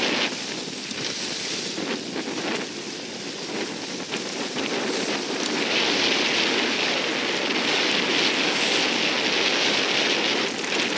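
Water rushing and splashing over choppy sea, with wind buffeting the microphone. The hiss grows louder and brighter a little past halfway.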